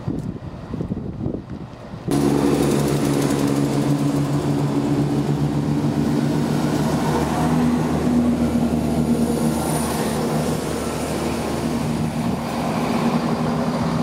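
Diesel passenger train running close by, its engines giving a steady low drone with several pitched tones, which starts abruptly about two seconds in. Before that, a quieter rumble of a train drawing into the platform.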